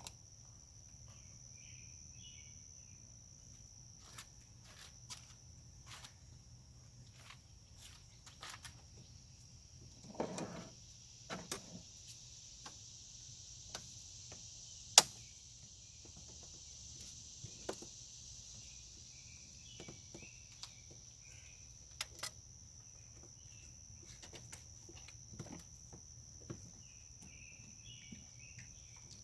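Scattered metallic clicks and knocks of hand tools working on an engine, with one loud sharp click about halfway through, over a steady high-pitched chirring of crickets.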